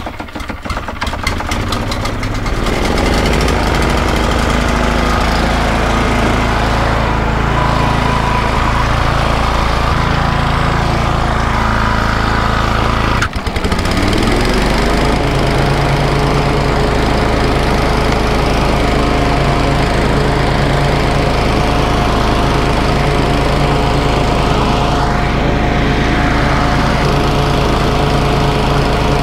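Toro TimeMaster push mower's engine just pull-started, picking up speed over the first couple of seconds and then running steadily. About 13 seconds in there is a brief break, after which it runs on at a steady speed while mowing.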